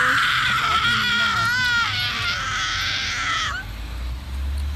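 A young woman's long, high-pitched wordless cry, wavering in pitch, held for about three and a half seconds before it stops. A low rumble follows near the end.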